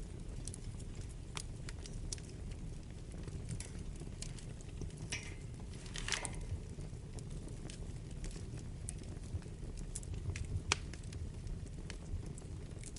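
Wood fire burning in a fireplace: a steady low rumble of flames with scattered sharp crackles and pops, a brief hiss about six seconds in, and one louder pop near the end.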